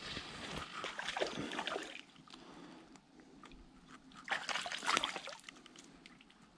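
Water sloshing and splashing close by in irregular bursts: a longer stretch at the start and another short burst a little past the middle.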